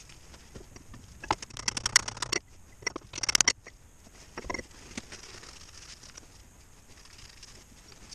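Metal hand tools clinking and clicking as they are sorted and picked up, with a dense run of clicks about a second in, a second quick run about three seconds in, and a softer knock shortly after.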